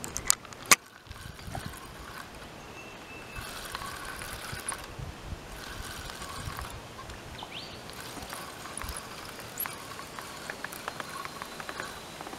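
A spinning fishing reel is wound in while a hooked carp is played, with water trickling and splashing and many small ticks. Two sharp clicks come within the first second.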